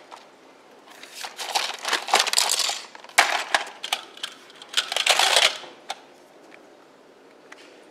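Hard plastic toys clattering and rattling against one another and the plastic laundry basket as they are shifted by hand, in three bursts of busy clicking knocks.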